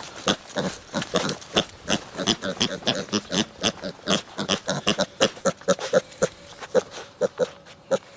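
Piglets grunting over and over, a quick string of short grunts about three or four a second. From about five seconds in, some grunts turn higher and more squeal-like.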